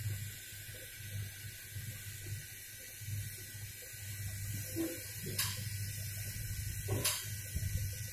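Hot air rework gun blowing steadily, with a low hum underneath, while a VRM MOSFET is heated for removal. Two sharp ticks come about five and seven seconds in.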